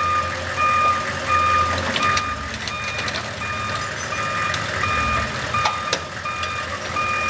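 Wheel loader's reversing alarm beeping about twice a second over its diesel engine running, with a few sharp knocks from the machine working on the car.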